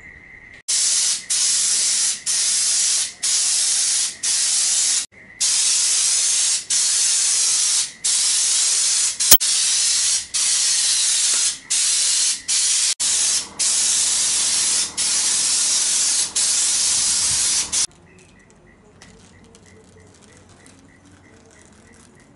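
Air-powered spray gun spraying Raptor Liner bed-liner coating. It makes a loud, steady hiss in long bursts, broken about every second by brief pauses between trigger pulls, and stops about three-quarters of the way through. Crickets chirp steadily before and after the spraying.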